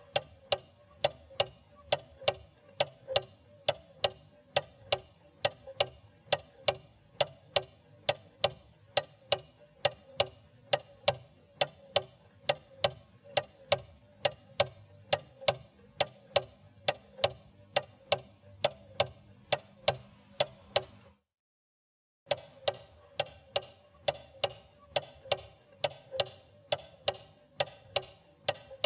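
Clock ticking steadily, about two ticks a second. The ticking stops for about a second a little past two-thirds of the way through, then starts again at the same pace.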